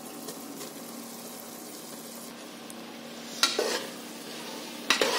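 Tomato masala sizzling in hot oil in a pressure cooker while a slotted metal spoon stirs it. About three and a half seconds in, chopped coriander and mint go into the oil with a louder scrape and sizzle, and there is another scrape near the end.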